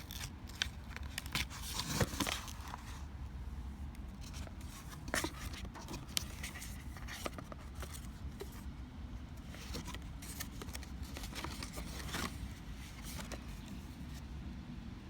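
Cardboard contact-lens box and its packaging being handled and opened: scattered clicks, scrapes and light tearing and crinkling, busiest in the first few seconds, over a steady low rumble.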